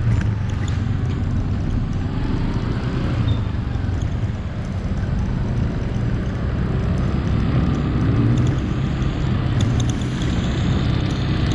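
Vehicle driving through city street traffic: a steady low rumble of engine and tyre noise, with the engine pitch rising and falling a few times as the speed changes.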